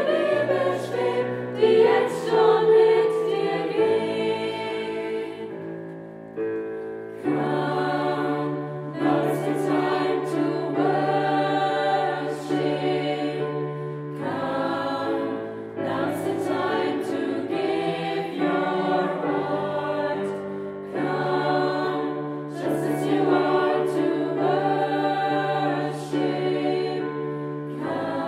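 Choral music: a choir singing slow, sustained chords over steady low held notes, with the harmony changing every few seconds.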